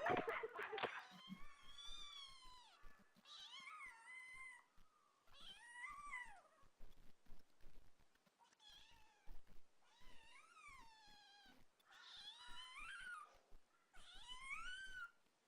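Domestic cat meowing over and over, about seven drawn-out calls that each rise and then fall in pitch, one to two seconds apart. A brief loud noise comes in the first second.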